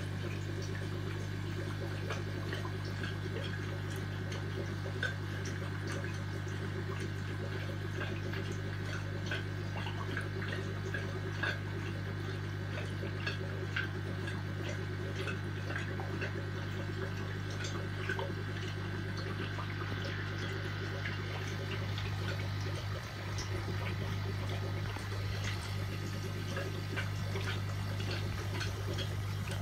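Aquarium water bubbling and trickling over a steady low hum, with many small ticks and pops scattered through it.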